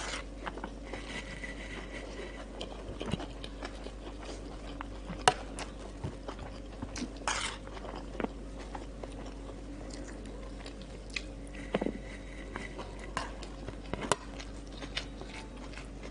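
Close-up eating sounds: chewing rice and crunchy cucumber-and-onion salad, with a metal spoon clicking and scraping on a metal platter. A sharp click about five seconds in is the loudest sound, over a low steady hum.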